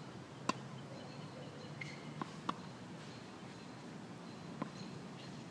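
Tennis ball struck by a racket and bouncing on a hard court: a few sharp, short pops, the loudest about half a second in, two more close together a couple of seconds later and one near the end.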